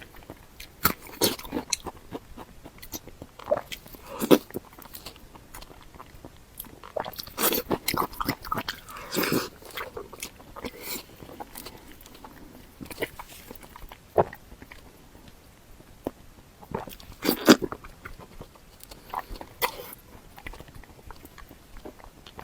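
Close-miked eating: biting and chewing with irregular wet mouth clicks and smacks, a few louder bites scattered through.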